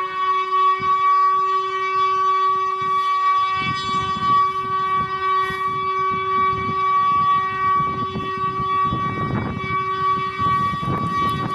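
Civil defence siren sounding a continuous steady tone, the test signal of a Czech siren test. Two pitches hold level together, a lower and a higher one, over some low background rumble that swells near the end.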